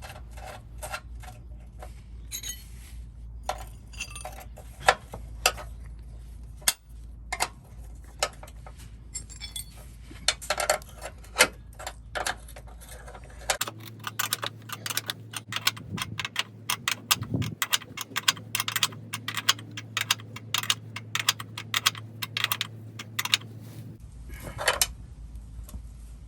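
Metal tools clicking and clinking while 3/8-inch nutserts (rivet nuts) are set in a steel frame with a bolt-and-nut mandrel tool and wrenches. The clicks come irregularly at first, then faster and denser in the second half.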